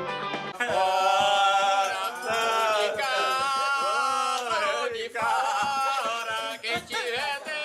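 A group of men singing together, a folk chant in the manner of a reisado, starting about half a second in as an instrumental tune cuts off.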